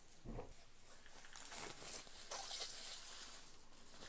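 Faint rustling and scraping of packaging as a keyboard is slid out of its protective cushioning, with a few soft handling knocks.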